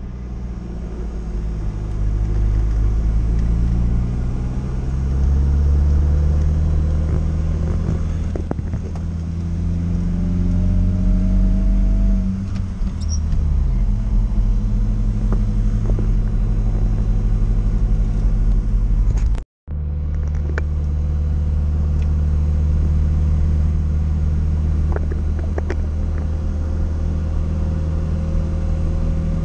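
Engine of a UAZ 452-family van (Bukhanka) heard from inside the cab while driving. The revs rise steadily for about ten seconds, then fall away; after a brief dropout about two-thirds of the way through, it runs steadily.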